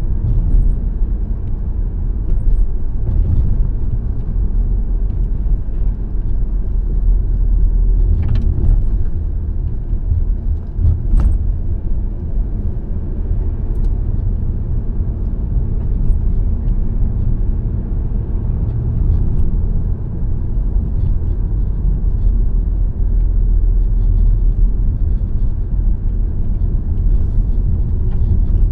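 A car driving at a steady speed: an even low rumble of tyres on the road and the engine, with a couple of brief clicks about eight and eleven seconds in.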